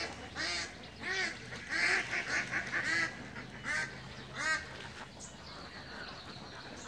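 Flock of domestic ducks quacking, a run of repeated calls that dies away after about four and a half seconds.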